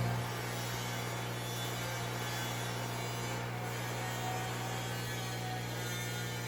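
Steady low electrical hum with an even hiss over it. It drops at the start and swells up again near the end.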